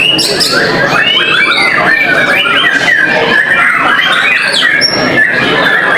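Many white-rumped shamas (murai batu) singing at once, a dense, loud tangle of rapid chirps, whistles and trills.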